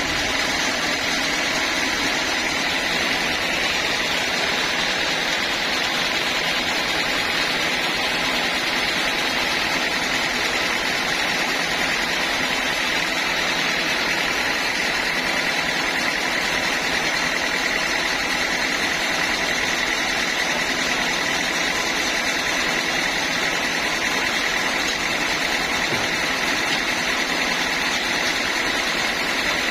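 Sawmill saw machinery running steadily: an even mechanical noise with a steady high whine, unchanging in level.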